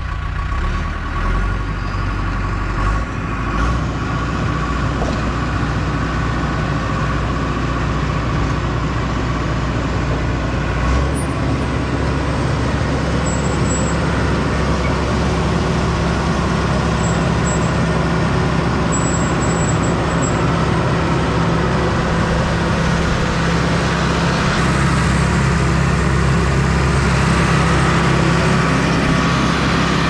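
Bulldozer's diesel engine running steadily under way, its deep low note shifting about eleven seconds in and the sound getting a little louder over the last few seconds.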